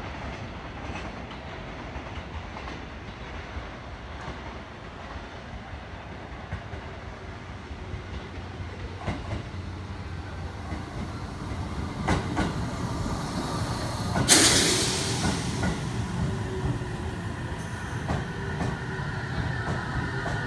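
A JR Central 313 series and 211 series electric train pulling into the platform. Its low rumble grows as it approaches, with wheels clacking over rail joints and a sudden loud hiss about 14 seconds in. A falling whine comes near the end as the train slows.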